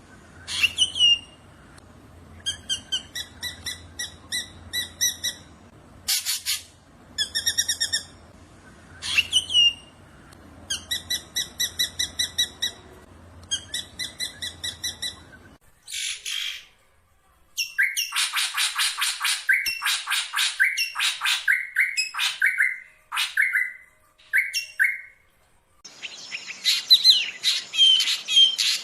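Black drongo singing: runs of quick, evenly repeated buzzy notes broken by sharp sweeping whistles. About halfway through, the sound changes suddenly to a faster, denser chattering run of notes.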